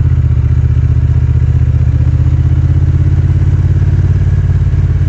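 Honda Rebel 1100's parallel-twin engine running steadily while the bike is ridden, an even low pulsing drone.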